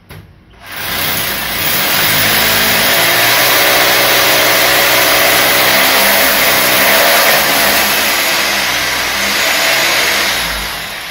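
Electric power drill boring into a wall tile to fix the chimney's mounting bracket: the motor whines up under a second in, runs steadily under load, and winds down near the end.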